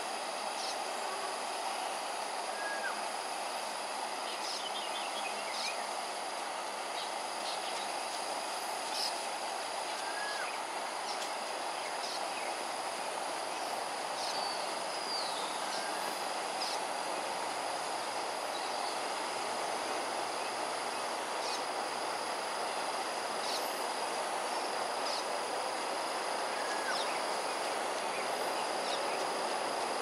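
Steady outdoor ambience: an even rushing noise under a constant high insect drone, with scattered short chirps and faint clicks now and then.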